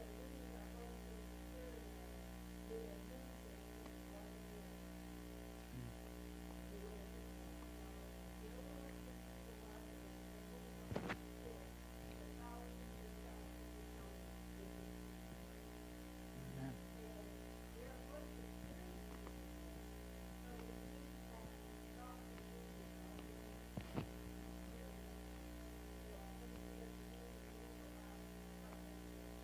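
Steady electrical mains hum on the recording, with a few faint scattered sounds. It is broken by a couple of sharp knocks about eleven seconds in and two more in quick succession later on.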